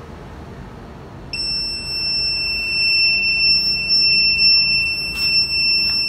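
Piezo buzzer of a homemade fall-alert device sounding one continuous high-pitched alarm tone, starting about a second in: the alarm set off when the device detects a fall.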